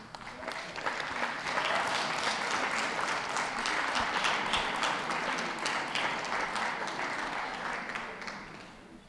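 Audience applauding: the clapping builds over the first couple of seconds, holds steady, then dies away near the end.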